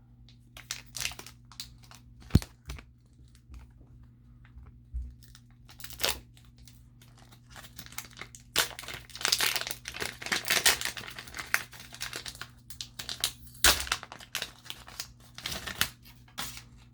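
Trading card pack wrapper being torn open and crinkled by hand: irregular rustling with a sharp click a couple of seconds in, and the most crinkling over the second half.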